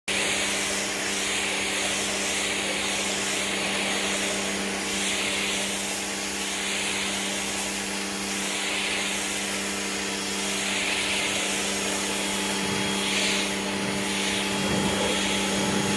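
Small pressure washer running: a steady pump-motor hum under the hiss of the water jet on weathered barnwood boards. The hiss swells and fades every second or two as the spray sweeps back and forth across the wood.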